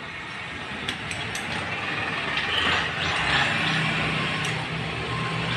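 Wrench work on the bolts of a motorcycle engine's top end: a few sharp metallic clicks and clinks, over a vehicle engine running in the background that swells midway through.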